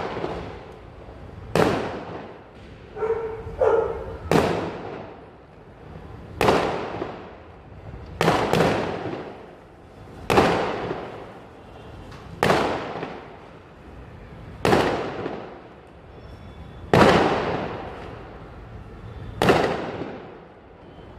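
Aerial fireworks going off in a steady series, a sharp bang about every two seconds, each followed by a fading tail.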